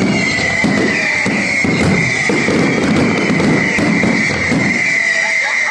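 Fireworks display going off: dense crackling and rumbling bangs under a single steady high whistle that holds for several seconds and fades near the end.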